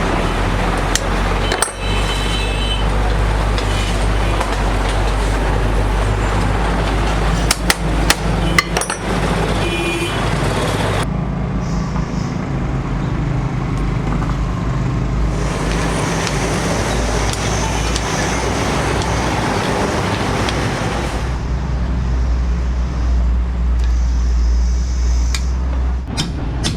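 Steady low mechanical rumble, like vehicle traffic or an engine running, with a cluster of sharp metallic taps about eight seconds in.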